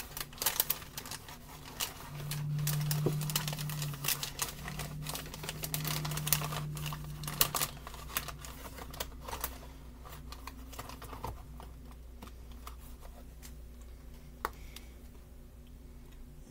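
Scattered light clicks and taps of kitchen handling, with a low steady hum for several seconds in the first half; the clicks thin out and it grows quieter in the second half.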